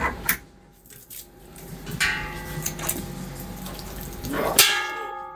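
Two sharp clicks of brewing quick-disconnect fittings, then wort running and splashing out of the mash tun's open ball valve, with a loud rush about four and a half seconds in.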